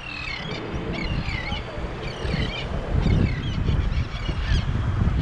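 A flock of seabirds calling, many short sliding cries one after another, over a steady low rumble of wind and surf.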